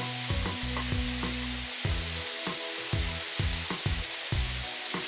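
Steady hiss of water spraying from car-wash hoses, over background music with a bass line struck in a regular beat.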